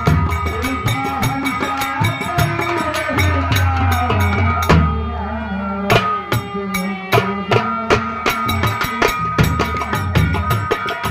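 Indian folk theatre music: fast, dense hand-drum strokes over a sustained melody. About five seconds in, the drumming drops to a few scattered strokes, and it picks up fast and dense again near eight seconds.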